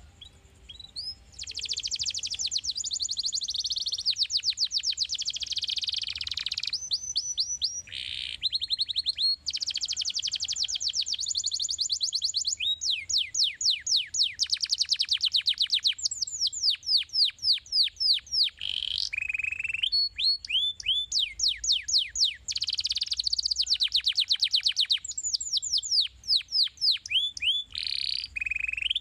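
Domestic canary singing a long, loud song from about a second in: fast buzzy trills alternating with rapid runs of repeated falling notes, broken by short pauses between phrases.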